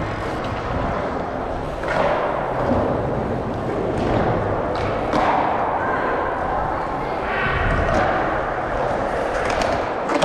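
Dirt jump bike tyres rolling over smooth concrete skatepark banks, a steady noise that swells as the bike pumps through the transitions, with a few thuds.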